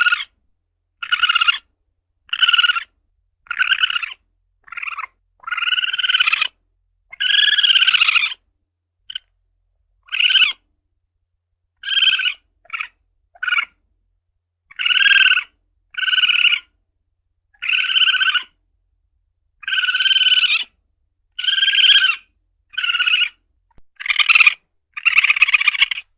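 Asian palm civet (luwak) calling: a steady series of short, high calls, about one a second, with a few longer drawn-out ones and brief silences between.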